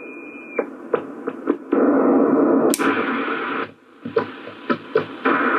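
Sony CRF-320 shortwave receiver playing through its speaker on upper sideband: a steady whistle that stops about half a second in, then crackles and loud bursts of static and hiss.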